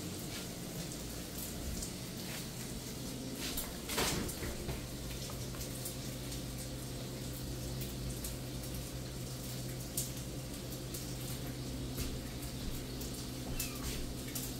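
A three-week-old kitten mewing faintly over a steady low hum, with a few light knocks, the clearest about 4 seconds in.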